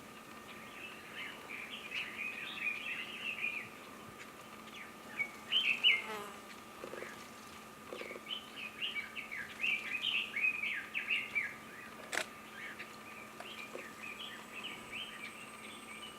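Red-billed leiothrix singing: bursts of fast warbling phrases, each a few seconds long, with short pauses between them. A single sharp click comes about twelve seconds in.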